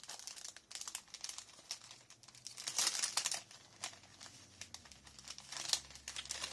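Paper scrapbooking ephemera pieces rustling and crinkling as they are handled and sorted by hand, with scattered small taps and clicks, busiest about halfway through and near the end.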